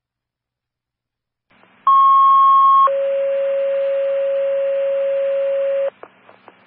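Fire dispatch two-tone page over the radio: a steady high tone held about a second, then a lower tone held about three seconds, cutting off sharply, followed by faint radio static and clicks. The tone sequence is the alert that sets off the fire company's pagers before the dispatch is read.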